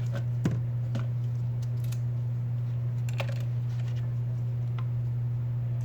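Steady low electrical hum with a handful of small, irregular clicks and taps from handling tools and paper on a repair bench, the sharpest about half a second in.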